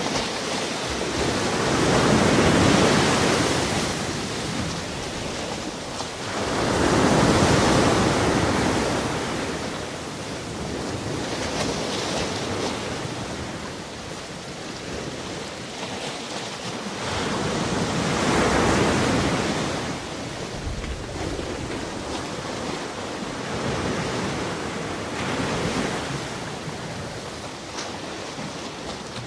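Surf: waves washing in, the rushing swelling and falling away every four to six seconds.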